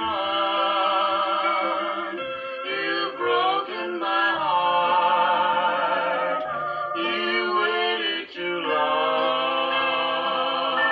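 A man and a woman singing a slow country duet with vibrato on long held notes, over the band's accompaniment, in a short pause between sung phrases.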